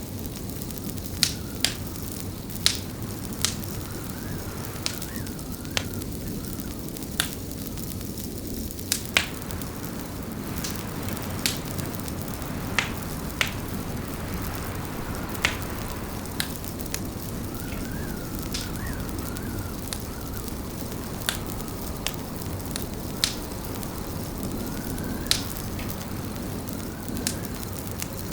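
Wood fire crackling in a fireplace: sharp, irregular pops and snaps over a steady low rumble.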